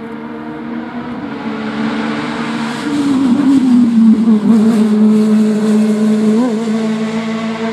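Racing sports prototype's engine held at high revs, growing louder as the car comes past, its pitch sliding down a little just before it is nearest and wobbling briefly twice afterwards.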